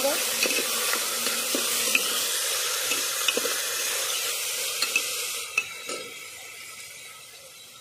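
Soaked chana dal and diced potato sizzling in hot oil in a pressure cooker, stirred with a metal ladle that scrapes and clicks against the pot. The sizzle dies down over the last two seconds or so.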